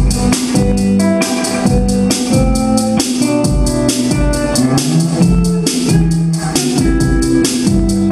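Live band playing a song: guitar over a drum kit keeping a steady beat, with the kick drum about twice a second.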